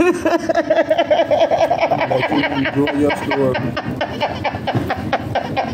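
A woman laughing hard: a quick run of high-pitched "ha" sounds, several a second, that keeps going without a break.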